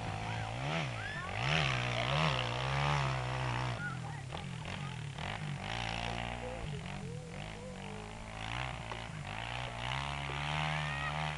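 MXF 250 Cross dirt bike engine revving up and down repeatedly, then running lower and steadier before climbing again near the end, as the bike rides on loose, freshly turned dirt where the rear wheel keeps spinning.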